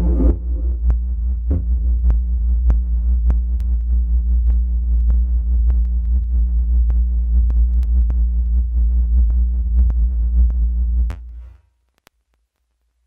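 Electronic music with a deep, sustained bass and a steady beat of a little under two beats a second; it fades out quickly about eleven seconds in.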